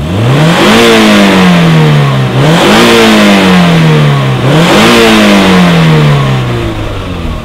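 A car engine revved three times, each rev climbing quickly and then dying away slowly, fading near the end.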